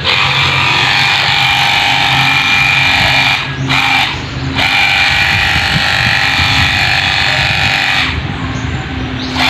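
Cordless handheld washing water gun's battery pump motor running steadily as it sprays. It cuts out for about a second around three and a half seconds in and drops away again near the end.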